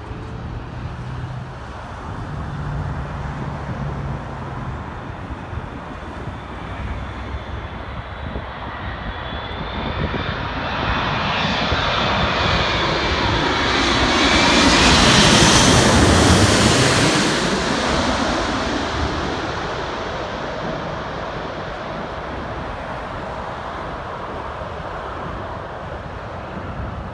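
Airbus A380's four turbofan engines passing low overhead on final approach to land. The jet noise builds for several seconds with a rising whine, is loudest about halfway through, then falls away as the whine drops in pitch.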